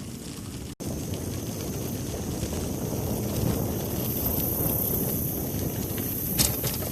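Wind buffeting the microphone while riding a bicycle along a dirt trail, a steady low rumble with hiss. The sound drops out briefly about a second in, and there is one sharp click near the end.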